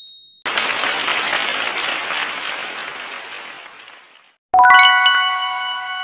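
Quiz sound effects marking a correct answer: a single high ding fading out, then recorded applause for about four seconds, dying away. Near the end a bright chime of several bell-like notes rings at once.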